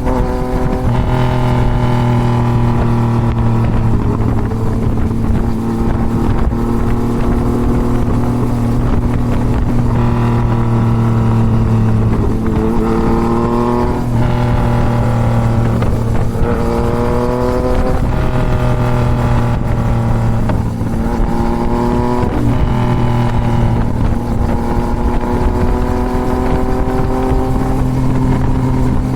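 2024 Yamaha MT-09's inline-three engine, breathing through a full Toce exhaust, pulling hard on the road: its pitch climbs and falls again and again as the rider accelerates, shifts and rolls off, with wind rushing past the microphone.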